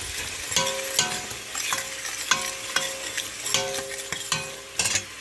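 Spoon stirring oil and tomato paste frying in a pot. The spoon knocks against the pot two to three times a second, each knock ringing briefly, over a steady sizzle. The stirring stops just before the end.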